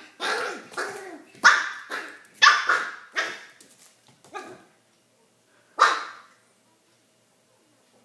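A small puppy's play barks, short and sharp: a string of them in the first five seconds and a last one about six seconds in. These are a very young puppy's first barks.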